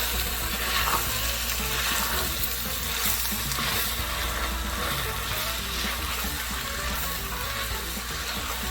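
Pot of jollof rice sauce sizzling steadily as washed rice is added and stirred in.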